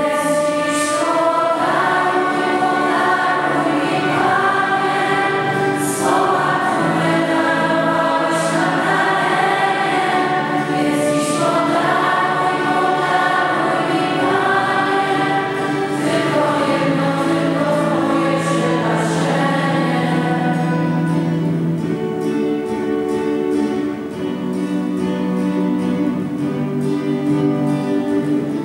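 A choir singing a slow Christian hymn in long held notes; the higher voices drop away in the last few seconds, leaving lower sustained notes.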